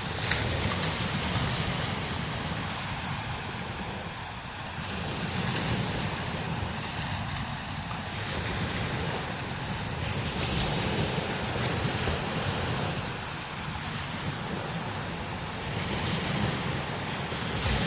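Strong desert wind blowing in gusts that swell and ease every few seconds, with a low rumble of wind buffeting the microphone.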